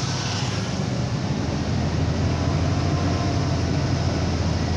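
Scania 113's 11-litre straight-six diesel engine running steadily, heard from inside the cab as the truck is held in gear down a long mountain grade.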